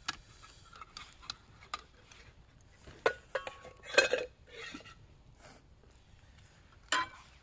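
Plates and utensils clinking and clattering on a camp table as the dishes are handled and packed up, with a brief ringing clink and then a louder knock about four seconds in.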